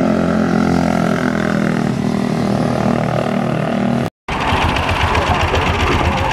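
A motorcycle engine running at a steady pitch. After a cut about four seconds in, a Ducati 999's L-twin idles with an uneven, lumpy low beat.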